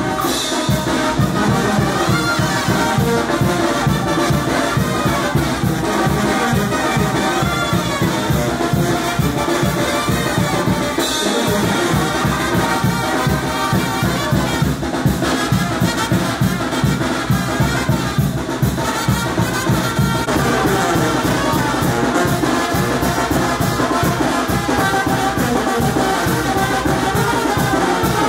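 Mexican brass band (banda) playing: trumpets and trombones carrying the tune over a steady, driving drum beat.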